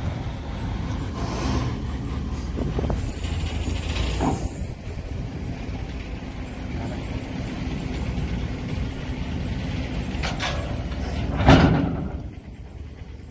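An engine idling steadily, with a loud metal clank about eleven and a half seconds in as a steel grating ramp is set down between the bank and the boat.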